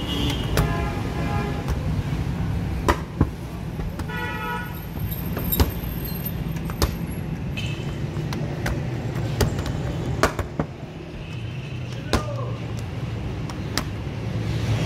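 Street traffic rumbling steadily, with two short vehicle horn toots about half a second in and about four seconds in. Sharp knocks come now and then as dough is handled on the pad.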